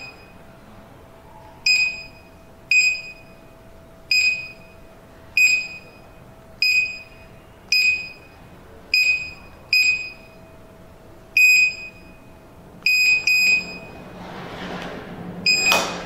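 Built-in buzzer of a Retekess T-AC03 access-control keypad giving a short, high beep with each key press. About a dozen beeps come at an uneven pace as a user ID and card number are keyed in during programming. A soft rustle comes near the end, followed by a louder beep.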